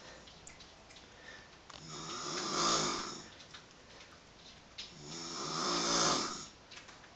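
Snoring: two long snores, each swelling up and fading away, about three seconds apart.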